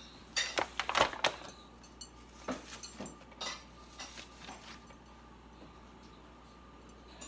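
Kitchen handling noises: a quick cluster of clicks and knocks in the first second and a half, then scattered lighter clicks, as a disposable aluminium pan is shifted on the countertop. The last few seconds are quiet room tone.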